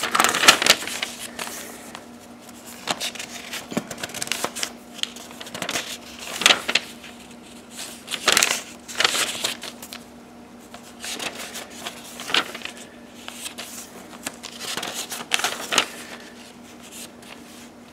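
Pages of a paper sale flyer being turned and handled, rustling and crinkling in irregular bursts, with a faint steady hum underneath.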